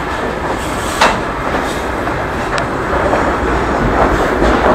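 A train passing on the railway: a steady rumble of wheels on the rails, with a sharp clank about a second in and another about halfway through.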